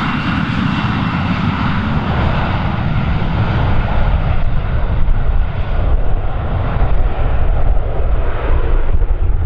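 Embraer regional jet's turbofan engines at takeoff power during its takeoff run, a loud steady rumble whose higher hiss fades as the jet moves away.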